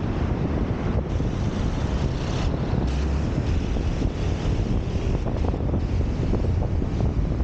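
Wind buffeting the microphone of an action camera on a moving vehicle, a steady low rumble, with road and traffic noise under it.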